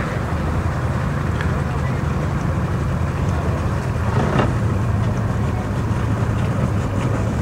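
Twin Mercury 400 outboard engines idling with a steady low hum.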